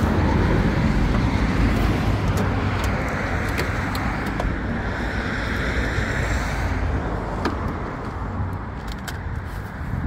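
A road vehicle passing and moving away: a steady rush of tyre and engine noise that slowly dies down. A few faint clicks come in the second half.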